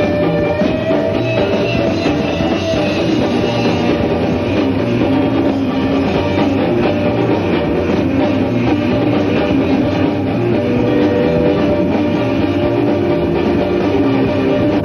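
Live rock band playing an instrumental passage, electric guitar over a drum kit, steady and loud.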